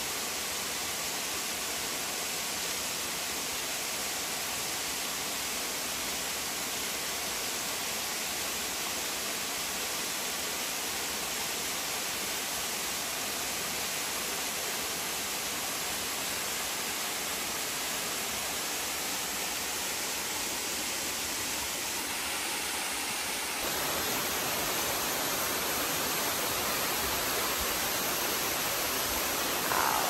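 Waterfall rushing down a steep rock face, a steady noise. About three-quarters of the way through it becomes louder and deeper.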